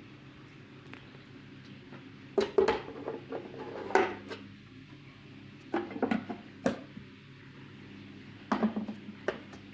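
Handmade eyeglass-lens cutting machine with its small motor humming steadily, broken by four short clusters of sharp clicks and knocks.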